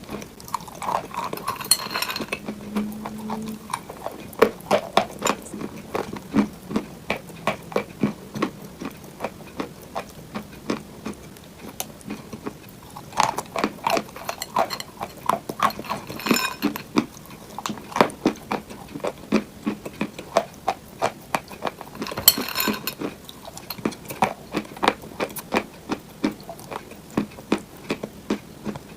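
ASMR fake-eating crunch sounds: a steady run of crisp clicks and crackles, several a second, with louder crunchy clusters now and then.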